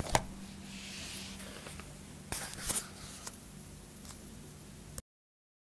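Room tone from the voice recording: a steady low hum and hiss with a few small clicks and rustles, one sharp click just after the start and a brief hiss about a second in. The sound cuts off to silence about five seconds in.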